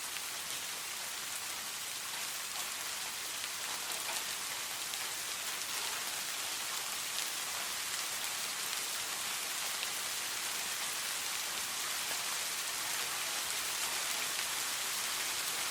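Steady rain falling, an even hiss with many small drop ticks. No thunder is heard.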